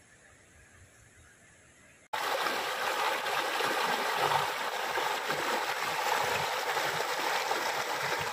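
Faint low sounds, then about two seconds in a sudden cut to the loud, steady rush of flowing water, as of a river running over rapids.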